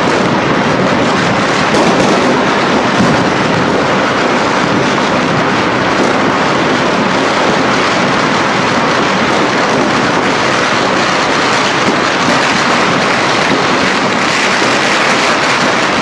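Many firecrackers and fireworks going off at once, their crackles and bangs merging into a loud, unbroken din.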